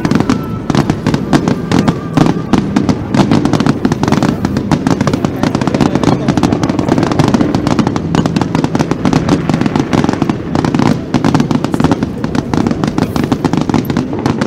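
Fireworks display: a dense, continuous barrage of bangs and crackling pops, many a second, over a low rumble.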